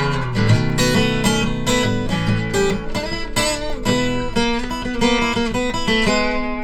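Acoustic guitar strummed steadily through an instrumental break between verses of a 1950s rock'n'roll song.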